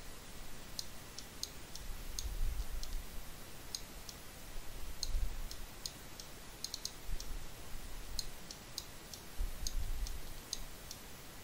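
Computer mouse clicking irregularly, single clicks and quick double clicks, while vertices are being selected and moved, with a few soft low rumbles in between.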